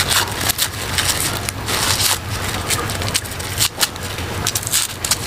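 Dry, papery garlic skins crackling and rustling in many short irregular snaps as cloves are peeled by hand, over a low steady hum.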